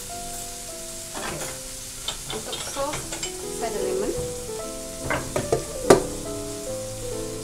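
A white ceramic ramekin and a plate knocking and clattering lightly on a wooden cutting board, several times, the loudest knock just before six seconds in as the ramekin is set down. Underneath are background music and a steady frying sizzle.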